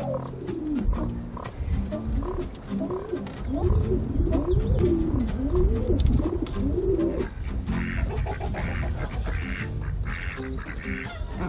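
Domestic pigeons cooing in a run of rising-and-falling calls over background music. About eight seconds in, ducks take over, quacking in quick repeated calls.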